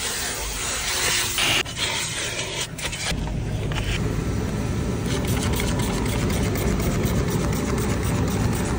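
A loud even hiss, then about three seconds in a steady low rumble of a car running.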